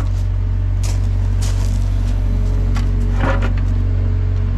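Sany 60 excavator's diesel engine running steadily while the bucket digs, with a few short crunching cracks as it breaks through the dirt.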